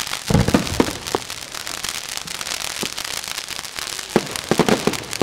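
Fireworks going off: a cluster of deep bangs about half a second in, a few single bangs after, and another quick cluster near the end, over a steady crackling hiss of burning stars.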